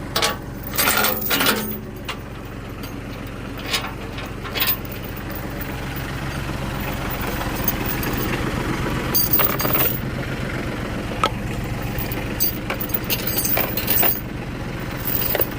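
Tractor engine idling steadily, with scattered sharp metal clinks and knocks over it, a cluster near the start and more later on.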